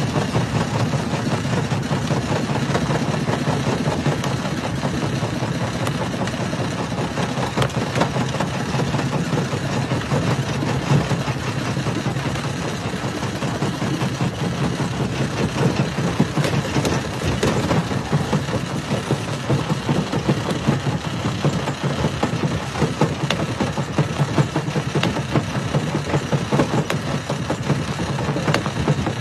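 Jaw crusher running, with a steady low hum and a dense, constant clatter of small knocks as rock is broken.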